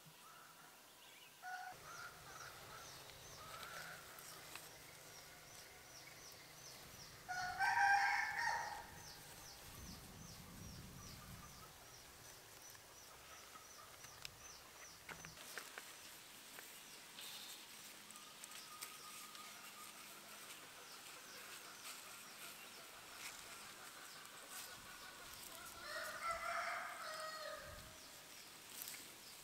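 Rooster crowing twice, about eight seconds in and again near the end, each crow about a second long. A faint high-pitched chirping repeats several times a second through the first half.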